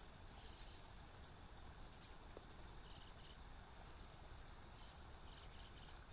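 Faint, steady murmur of a small river, with high chirping calls over it: a thin arched call about every three seconds and short runs of three or four quick pulses.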